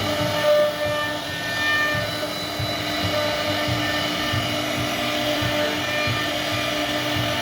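CNC router carving a hardwood panel: the spindle running steadily as the bit cuts the wood.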